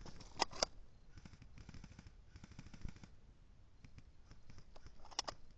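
HPA-powered airsoft gun firing: two sharp shots in quick succession about half a second in, and two more just past five seconds, with fainter distant shots between, over a low rumble.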